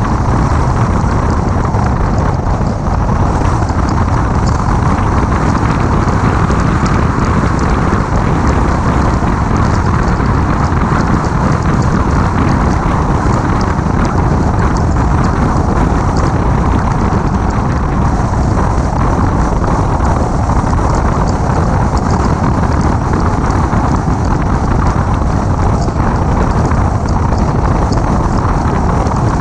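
Steady wind rumble on an outside-mounted microphone on a 2006 Mini Cooper S at road speed, with the car's road and engine noise beneath it.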